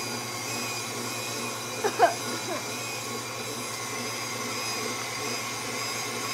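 KitchenAid stand mixer running steadily, its beater working dry ingredients into cake batter. A short high squeak cuts through about two seconds in.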